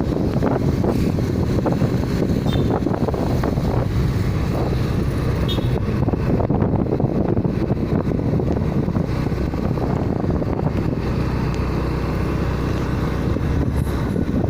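Wind rushing over the microphone on top of a vehicle's steady running noise, from travelling along a road.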